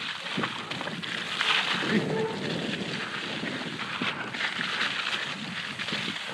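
Mountain bike riding down a muddy forest trail: a steady rushing noise of the tyres on wet mud and leaves, mixed with wind on the microphone and small knocks from the bike.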